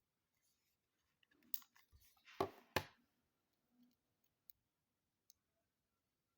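Handling noises from unboxing a watch: a short run of small clicks and light rustling, ending in two sharp clicks about half a second apart, then a couple of faint ticks.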